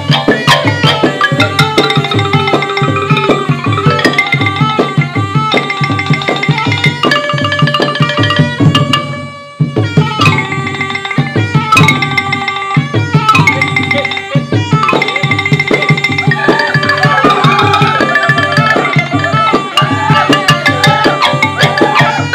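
Traditional-style music with quick hand-drum strokes under a melody that steps up and down, with a brief break about nine seconds in before it resumes.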